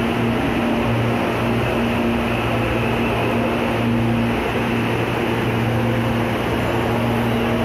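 CPTM Série 8000 electric multiple unit rolling slowly into the platform and coming to a stop, with a steady rumble and a low hum that comes and goes.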